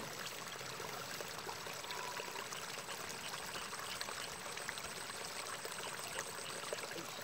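Water trickling and running steadily in a small rice-field irrigation ditch, an even watery hiss without a break.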